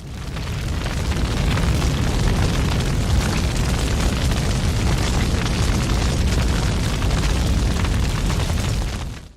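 A large fire burning with a dense, deep rumble and hiss: it fades in over about a second and a half, holds steady, then stops abruptly near the end.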